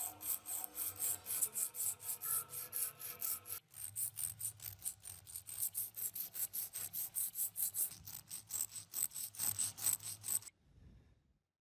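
Sandpaper scrubbing back and forth on rusty steel, in quick strokes about four or five a second. First a cloth-backed strip is drawn across the coils of a rusty spring handle, then a sandpaper pad scours a flat rusty steel bracket. The scrubbing stops shortly before the end.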